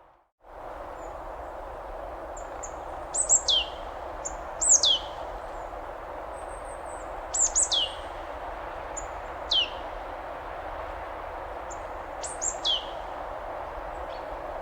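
Steady rush of a waterfall, with a bird calling over it: short, high whistles that drop steeply in pitch, given in little groups about five times and louder than the water.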